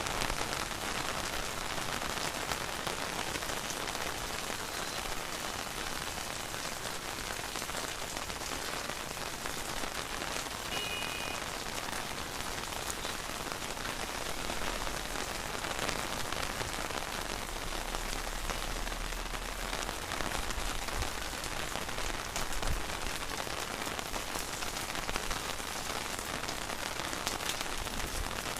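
Steady rain falling, a dense even hiss with individual drops ticking, with a low rumble for a few seconds in the middle.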